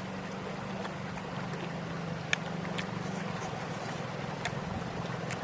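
A steady low engine drone runs throughout, with scattered short sharp clicks over it, the loudest about two seconds in.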